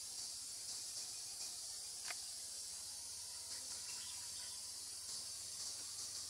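Steady high-pitched drone of an insect chorus, with a faint low hum beneath it and a single short click about two seconds in.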